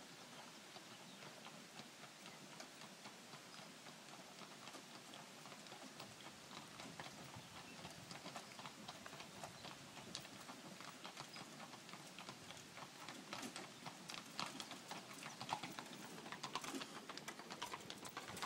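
Hooves of a wagon-pulling horse clip-clopping on cobblestones, faint at first and growing louder as the horse comes closer.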